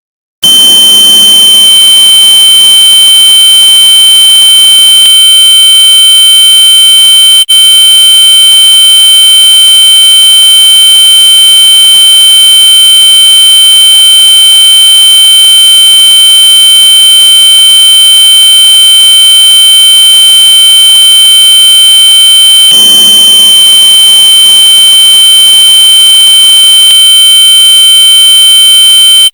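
A very loud, piercing high-pitched electronic tone that starts abruptly and holds at one steady pitch, shrill like a smoke-alarm sounder. It breaks off only for an instant about seven and a half seconds in.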